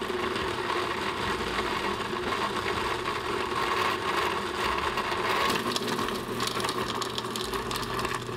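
Countertop blender motor running at its highest setting on a thick load of gummy and sour candy, a steady hum that turns rougher and grittier about five seconds in. The load is thick enough to make the blender smoke and overheat.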